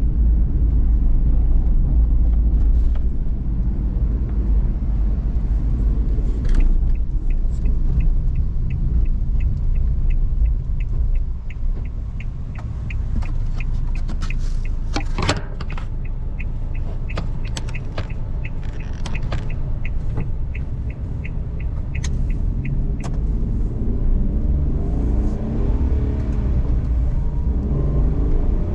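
Cabin noise of a Suzuki Every DA17V kei van on the move: steady low road and engine rumble. A fast regular ticking, about two to three a second, runs through the middle for about fifteen seconds, with a single sharp knock partway through.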